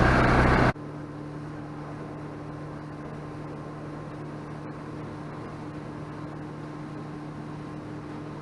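Loud engine noise cuts off abruptly under a second in, followed by a steady motor hum with a few held tones over a faint hiss.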